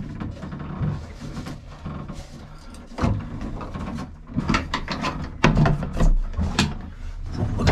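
Irregular clicks, knocks and rattles of hands working fittings in a small wooden boat's locker, with louder knocks near the end as a hatch lid is lifted by its brass flush ring pull.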